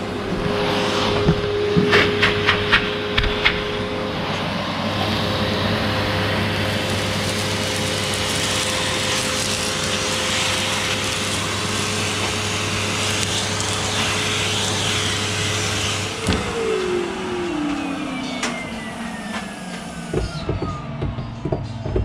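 Two old household vacuum cleaners running together, pulling air through a ducted PVC pipe system and a flexible hose: a steady motor whine over rushing air, with a quick run of sharp clicks and rattles a couple of seconds in. About sixteen seconds in there is a knock, and the motors are cut and wind down, their whine falling steadily in pitch.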